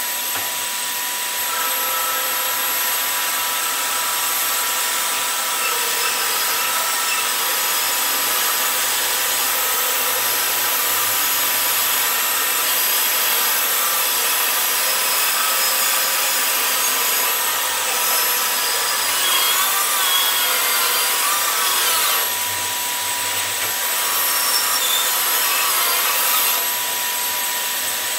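Bandsaw running and cutting a wooden guitar-body blank along a drawn outline: a steady machine whine under the rasp of the blade in the wood, swelling a little as the cut is pushed through.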